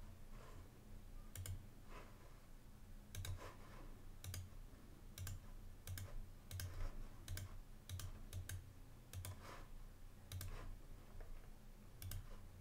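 Computer mouse button clicking: about fifteen faint, short clicks at irregular intervals, over a low steady hum.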